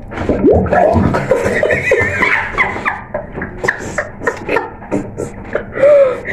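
Two women laughing hard, with water splashing near the start as one lifts her face out of a bowl of water.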